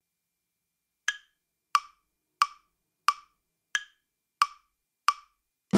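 Metronome count-in: seven identical wood-block clicks, evenly spaced about two-thirds of a second apart, with a play-along backing track coming in right at the end.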